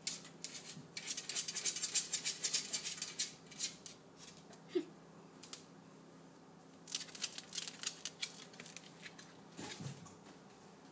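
Shih tzu's claws scrabbling rapidly at a glass panel: two flurries of quick scratching clicks, the first starting about a second in and the second about seven seconds in, with a lull between.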